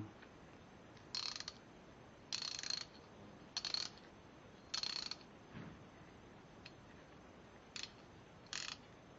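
A 3/8-inch drive socket ratchet being worked, its pawl clicking in about six short runs of fast, high-pitched clicks, each a fraction of a second long.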